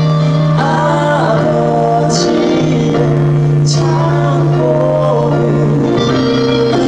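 A man singing a musical-theatre song through a handheld microphone over instrumental accompaniment, holding long notes.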